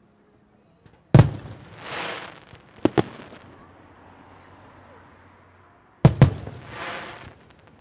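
Fireworks shells bursting in the air: a loud bang about a second in, two sharp cracks close together around three seconds, and a double bang near six seconds. The two big bangs are each followed by a short swell of rushing noise.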